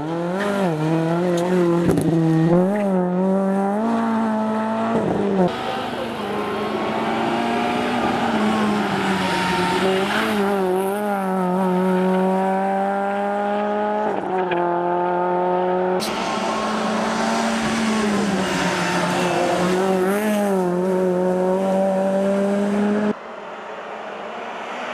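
Renault Clio rally car's engine running hard at high revs, the pitch climbing and dropping again and again with gear changes and braking, with tyre noise beneath. The sound jumps abruptly several times and falls quieter about 23 seconds in, when the car is far off.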